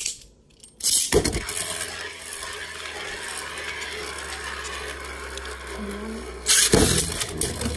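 Beyblade spinning tops in a plastic stadium. A sharp clatter about a second in is followed by a steady scraping whir as a top spins and travels across the plastic floor, and a louder clatter comes near the end.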